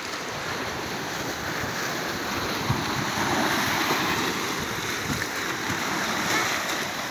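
Sea surf breaking and washing over rock boulders along the shore, a steady rush of water.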